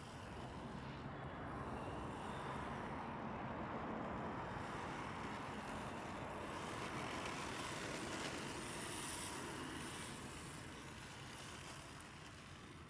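Radio-controlled drift car running at a distance: the thin whine of its brushless electric motor, with the tyres sliding on asphalt. The whine sags slightly and fades out near the end.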